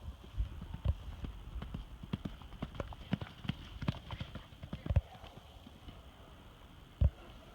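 Small pony's hooves clip-clopping in an uneven run of knocks for about five seconds, then one heavy thump near the end.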